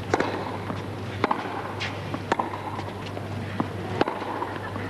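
Tennis ball struck by racquets: a serve and then a baseline rally, a sharp pop roughly every second, over a low steady hum and faint crowd noise.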